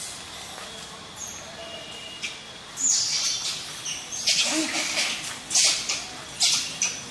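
Young macaques squealing in a series of short, high-pitched bursts, starting about three seconds in.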